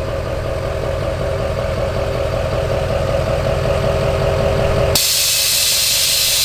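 Duramax diesel pickup engine idling with a steady low pulse. About five seconds in, a loud hiss of air from the rear air-ride suspension starts suddenly and lasts a couple of seconds.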